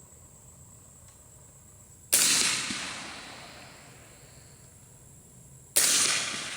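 Two suppressed .300 Blackout rifle shots with 220-grain subsonic rounds, about three and a half seconds apart. Each is a sharp report that trails off over a second or more.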